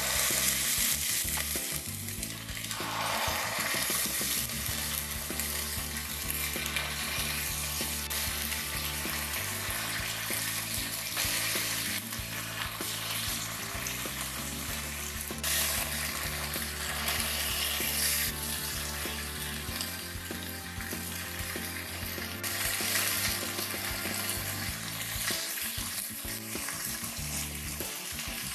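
Chicken drumsticks sizzling as they fry in hot oil in a pot. The sizzle starts with the first piece and grows fuller a couple of seconds in as more pieces go in.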